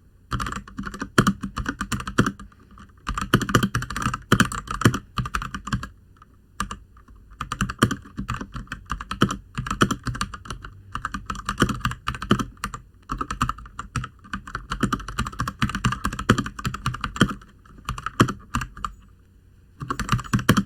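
Typing in fast runs on an RK61 mechanical keyboard with Gateron Brown tactile switches: dense key clacks, broken by short pauses.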